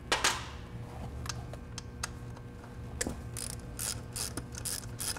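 Ratchet wrench clicking while turning out the small ignition-coil hold-down bolts. A single sharp click comes at the start, then about three seconds in a quick, even run of clicks sets in, about five a second.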